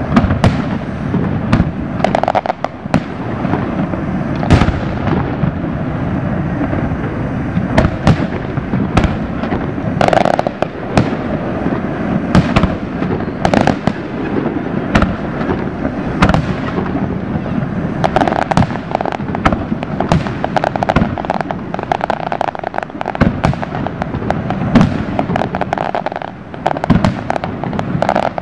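Aerial fireworks shells bursting overhead in quick succession: sharp booms, often one or two a second, over a continuous rumble of further reports.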